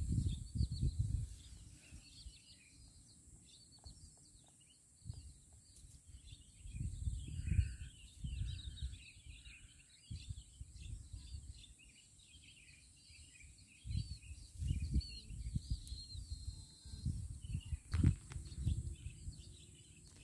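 Small birds chirping busily throughout, with three lower notes about eight to ten seconds in. Irregular bursts of low rumble come and go at the start, around seven seconds in and again near the end.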